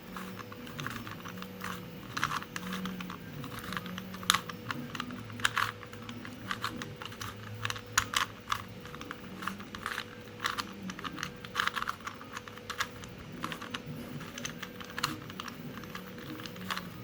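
3D-printed Rubik's cube solving robot at work: its servo motors hum in short pulses that rise and fall in pitch, while the plastic grippers and cube clatter with rapid, irregular clicks like typing.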